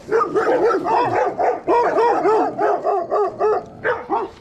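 Dogs barking in a rapid, near-continuous run of about four or five barks a second as they charge at a passing cyclist, breaking off briefly near the end.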